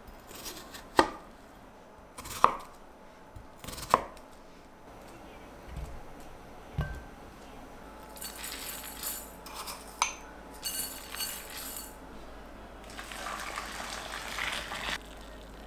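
Kitchen dishware clinking: three sharp, ringing knocks in the first few seconds, then softer handling and rustling noises with a single click.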